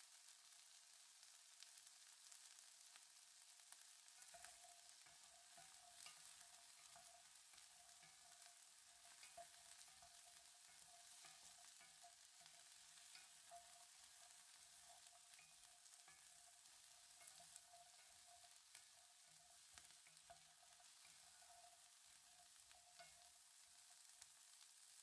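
Carrot slices and peas frying in butter in a pan: a faint, steady sizzle with scattered small crackles.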